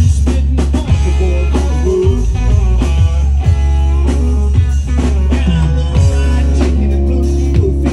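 Live country-rock band playing an instrumental passage: electric guitar over bass guitar and a drum kit, with no singing.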